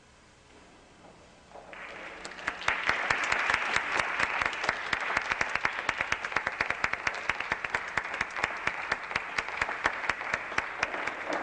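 Audience applause: after a brief hush it breaks out about two seconds in and keeps going steadily, a dense mass of many separate hand claps.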